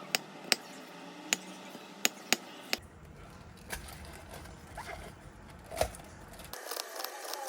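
A series of sharp, irregularly spaced clicks and knocks, several in the first three seconds and one more about six seconds in.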